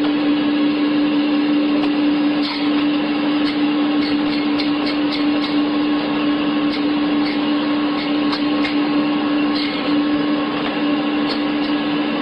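Meat band saw running steadily, its motor giving a constant hum with a loud whirring noise over it, while chicken is pushed through the blade; light irregular ticks sound through it.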